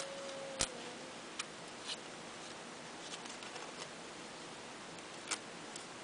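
Scissors snipping through index card: a few sharp, irregularly spaced snips, the loudest about half a second in and another about five seconds in, over a faint steady hiss.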